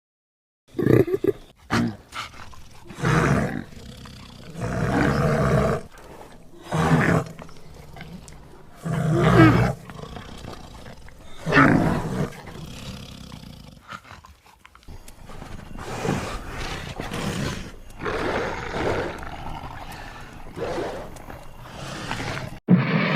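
Invented roars and growls for prehistoric animals: a string of separate calls about a second long, about six loud ones in the first half, then quieter, longer calls after.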